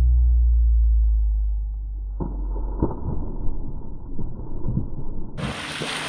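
Slowed-down audio of an Appenzeller Sennenhund diving into a lake: a loud, deep, drawn-out rumble, then muffled, slowed splashing. About five seconds in, the sound jumps to normal speed as the dog splashes through the water with a frisbee in its mouth.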